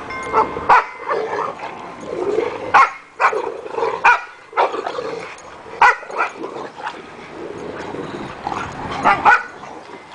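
Dogs play-fighting (an English Mastiff, a Boxer and a pit bull), giving short, sharp barks every second or two, with two close together near the end.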